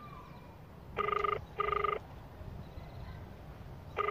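Phone ringback tone heard through the handset's speaker: a double ring of two short buzzing tones that repeats about every three seconds. It is the sound of an outgoing call ringing unanswered.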